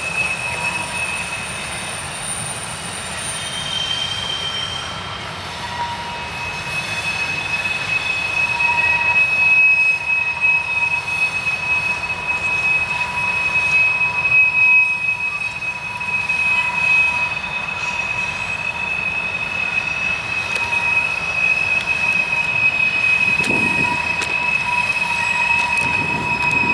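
Manifest freight train cars rolling through a curve, their wheel flanges squealing in long, steady, high-pitched tones over the rumble and rattle of the wheels.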